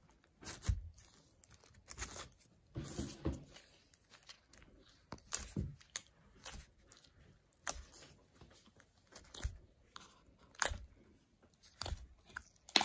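Sticky clear slime being handled and kneaded with activator, giving irregular crackles, clicks and small wet pops.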